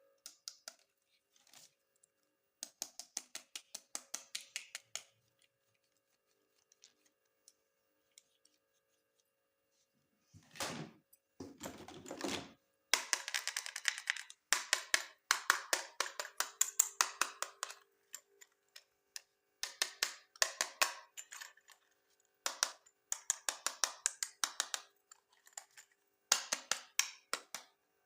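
Quick runs of small clicks and rattles, like plastic toy pieces being handled and snapped together. A fuller rustle or knock comes about halfway through, then the clicking grows denser and louder.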